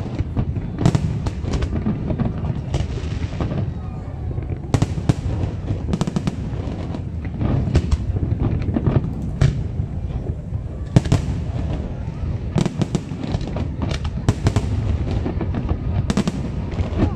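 Fireworks display: aerial shells bursting in a dense series of sharp bangs over a continuous low rumble, thinning briefly a few seconds in.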